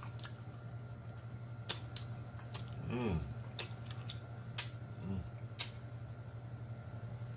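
Close-miked eating of chicken wings: scattered wet mouth clicks and lip smacks as meat is stripped from the bone and fingers are sucked, with two short falling "mmm" hums, about three and five seconds in.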